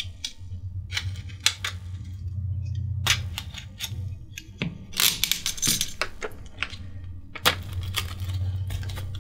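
Cardboard and plastic packaging of a small boxed screwdriver kit being handled: scattered rustles, taps and clicks, with a low hum underneath at times.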